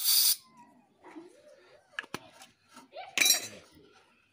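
Short hisses from an aerosol spray can of anti-rust cleaner sprayed onto a car's radiator fan wiring connector: one burst at the start and another about three seconds in. A couple of sharp clicks come about two seconds in.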